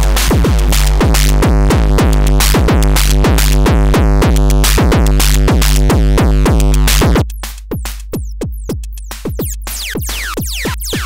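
Akai Tom Cat drum machine pattern played through a Schlappi Engineering Angle Grinder eurorack module, heavily distorted over a steady low drone. About seven seconds in the dense distortion drops away suddenly, leaving sparser drum hits with falling, ringing tails as the module's knobs are turned.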